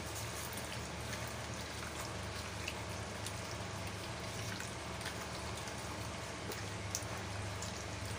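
Wet squelching and small sticky clicks of raw chicken pieces being squeezed and mixed by hand in a yogurt-and-spice marinade, over a steady low hum.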